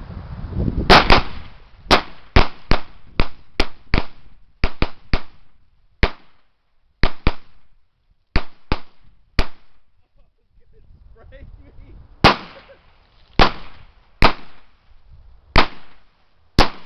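.40 caliber semi-automatic pistols (Smith & Wesson Sigma SW40VE and Glock 22) firing about twenty shots: a quick, uneven string for the first nine seconds or so, a short pause, then five slower shots about a second apart.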